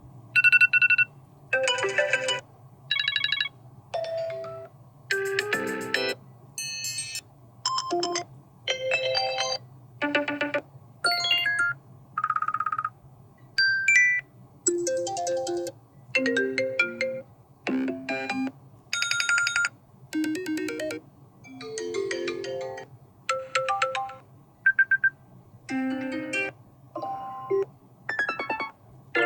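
iPad Air 5 default alarm tones played one after another as short snippets of about a second each, every one a different chime or electronic melody, with brief gaps between them. A faint low hum runs underneath.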